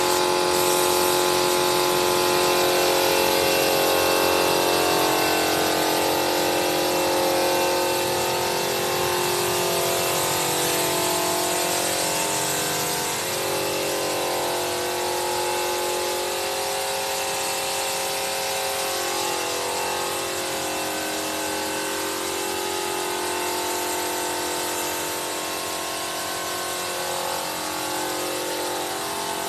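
Air compressor running steadily for a paint spray gun, its hum wavering slowly, with a steady hiss of compressed air over it.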